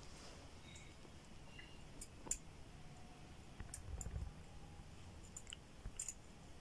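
Faint, scattered small metallic clicks of a piston ring being worked by hand into its groove on a Suzuki Margalla piston, with one sharper click a little over two seconds in.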